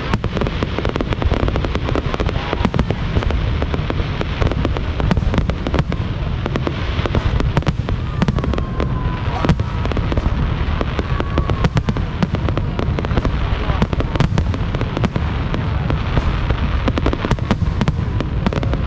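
Aerial fireworks display going off in a dense, continuous barrage, with bangs and crackles overlapping without pause.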